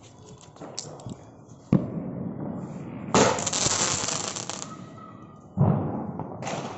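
Aakash Rider sky-shot firework going off: a sudden bang about two seconds in, then a loud hiss lasting about a second and a half as it climbs trailing sparks, and another sharp bang near the end.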